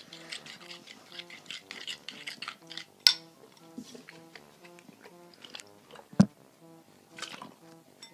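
A utensil stirring slime in a bowl, with quick scraping and clinking strokes, then a sharp knock about three seconds in and a thump about six seconds in, over quiet background music.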